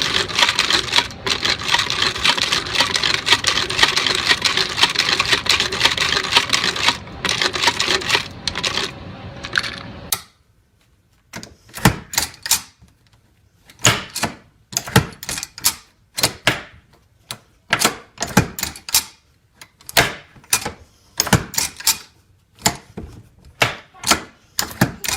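Hand-operated machine-gun ammunition belt loader at work. A dense, rapid metallic clatter stops abruptly about ten seconds in. It gives way to separate sharp clacks, often in quick groups of two or three, with short pauses between.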